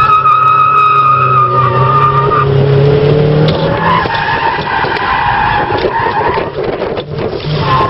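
Turbocharged Toyota Glanza heard from inside the cabin, its engine running hard while the tyres squeal through a corner. The squeal is strongest in the first couple of seconds, and the engine note drops briefly near the end before picking up again.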